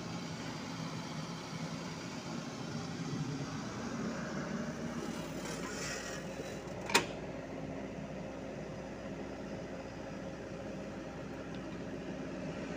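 Sany mini excavator's diesel engine running steadily as the machine digs and moves soil, with one sharp knock about seven seconds in.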